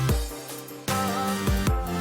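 Background music with a steady beat and bass line; it thins out briefly about half a second in, and the beat comes back near the middle.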